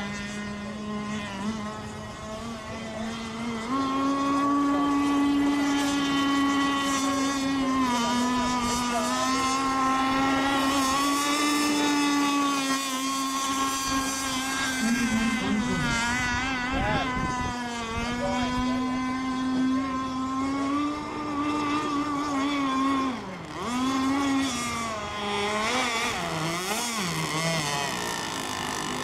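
Radio-controlled racing boat's motor running at speed, a steady high drone. Its pitch steps up about four seconds in, then dips and climbs back twice in the second half.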